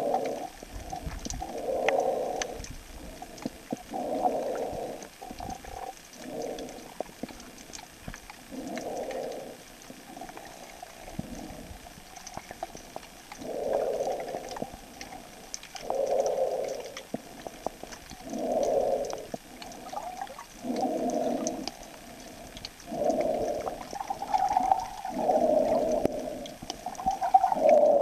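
Muffled underwater gurgling picked up by a submerged camera, coming in surges about a second long every two to three seconds at an uneven pace.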